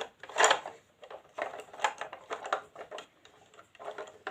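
Plastic toy bin lorry parts being handled and fitted, giving irregular small clicks and rattles, with one louder rustle about half a second in.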